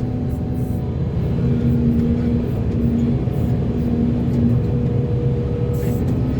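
Volvo EC480D excavator's diesel engine running steadily with a low drone, a held tone rising above it that breaks off and returns several times.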